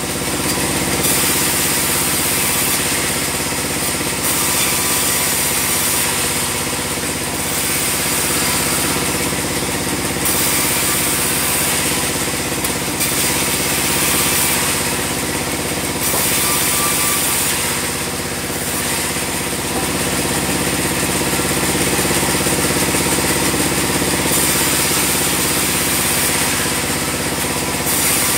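Band sawmill running while sawing a log into square beams. A steady machine drone runs throughout, with a high-pitched hiss that swells and fades every couple of seconds.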